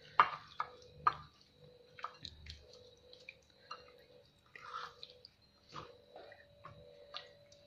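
Wet squishing and small irregular clicks of a hand kneading mackerel pieces in a loose paste of chili powder, turmeric, salt and a little water in a bowl. The loudest squelches come within the first second.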